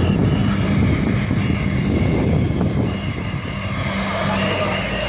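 Airplane engines running, a steady loud rumble that eases a little about three seconds in.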